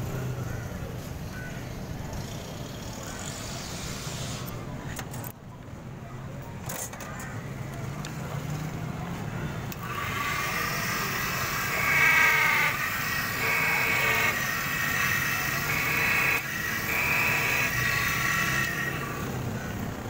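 A key-duplicating machine is switched on about halfway through and runs with a whine while its cutter grinds a blank key. It gets louder in several short stretches as the cutter bites, then stops shortly before the end. Before that there is only light handling and a few clicks.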